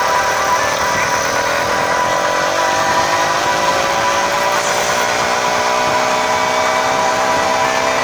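Motorized bicycle's small gasoline engine running steadily under way, its pitch climbing slowly from a couple of seconds in as it picks up revs.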